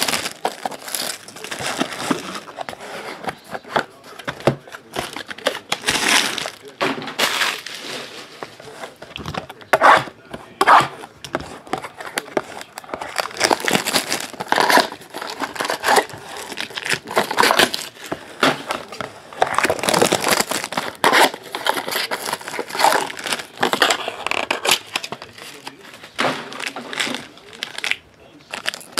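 Clear plastic shrink-wrap and foil wrapping crinkling and tearing as a trading card box and its wrapped packs are opened by hand, in irregular crackles and rustles.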